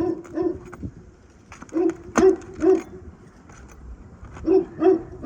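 A dog barking in quick runs of three or four barks, with pauses between the runs. One sharp knock sounds about two seconds in.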